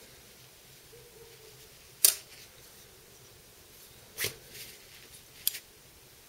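Three short, sharp clicks about a second or two apart, the first the loudest. They come from a folding knife and a small metal driver bit being handled while the knife, its screws already out, is being pulled apart.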